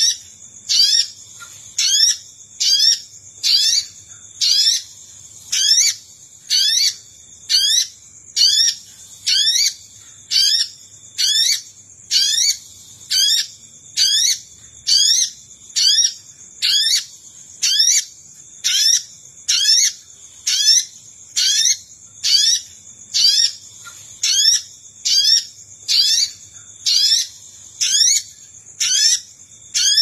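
Olive-backed sunbird (sogon) calling over and over, a short rising call repeated about three times every two seconds, as a looped trapping lure. A steady high-pitched tone runs behind the calls.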